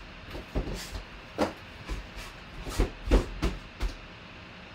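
A string of irregular knocks and rustles from packaging being handled and opened on a table, as a boxed jersey is unpacked; the loudest knocks come about three seconds in.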